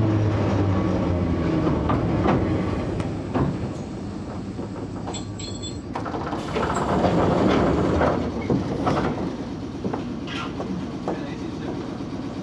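Enshu Railway Class 30 electric train running, its nose-suspended traction motors and gears giving a low growl that dies away over the first few seconds. Wheels click over rail joints now and then.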